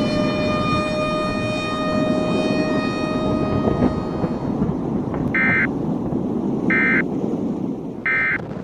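Outdoor tornado warning siren sounding one steady held tone over a constant low rumbling noise, fading out about halfway through. Then three short, identical electronic beeps about a second and a half apart.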